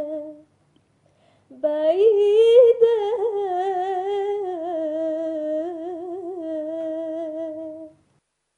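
A young girl's solo voice singing in Arabic with no accompaniment. A held note fades out just after the start; after about a second's pause she sings the word "ba'ida" (far away), drawing it out into one long ornamented note with vibrato that ends near the end.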